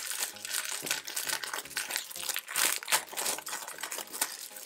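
Packaging crinkling and rustling in irregular crackles as an item is handled and unwrapped.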